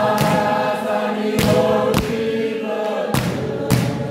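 A group of young men singing together unaccompanied, in full voice, with sharp hand claps struck in pairs keeping the beat.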